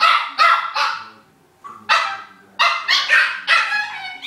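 Small dog play-barking while wrestling: sharp, high barks in quick runs, three close together, a pause of nearly a second, then five more.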